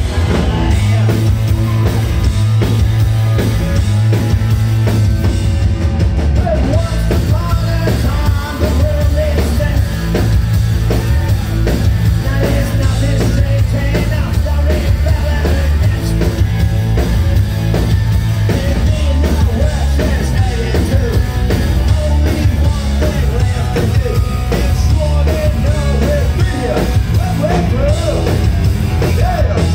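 Live punk rock band playing loudly: distorted electric guitars, bass and a drum kit, with a sung lead vocal over them.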